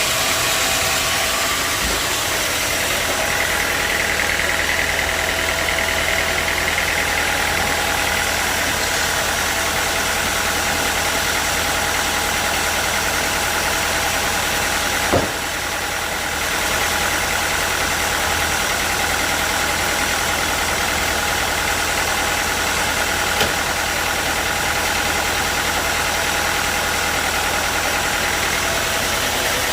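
Sawmill machinery running steadily, a motor with a continuous mechanical noise, with one sharp knock about halfway through and a lighter click near the end.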